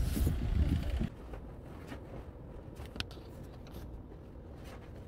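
Wind buffeting the microphone with a loud, uneven low rumble that cuts off about a second in. Faint outdoor hiss follows, with one sharp click about three seconds in.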